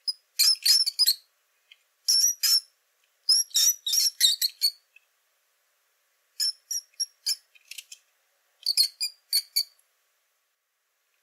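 Pet rat squeaking: about five bursts of several quick, high-pitched squeaks with short pauses between them.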